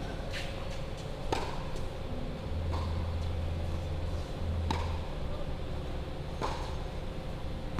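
Tennis ball being struck with a racket and bouncing on a hard court: several sharp pops at uneven intervals, over a low steady rumble.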